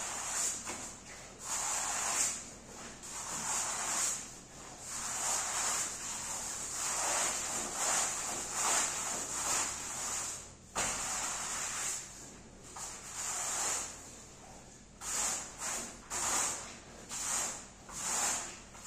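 A rug-cleaning tool swished across a rug in repeated hissing strokes, roughly one a second. The strokes come shorter and more distinct near the end, and there is a single sharp tap about eleven seconds in.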